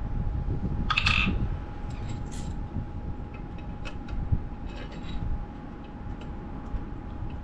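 Small metallic clicks and clinks of engine parts and hand tools being handled in an engine bay, with a brief rattle about a second in.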